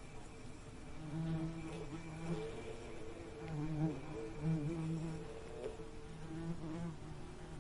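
Bees buzzing close by, the buzz coming and going in stretches of a second or two with short breaks between, wavering slightly in pitch.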